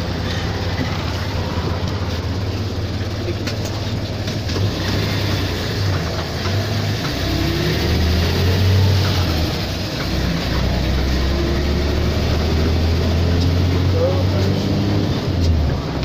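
City bus engine running with a steady low hum, its pitch rising a couple of times in the second half as the bus gets under way, heard from among a crowd of boarding passengers with their chatter in the background.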